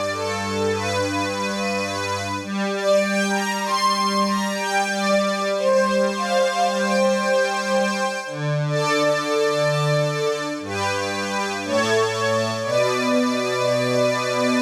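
Roland JX-3P analog polyphonic synthesizer with the Kiwi-3P upgrade, freshly tuned and calibrated, playing held chords on its String 2 string-ensemble preset. The chords change every few seconds, with quicker changes near the end.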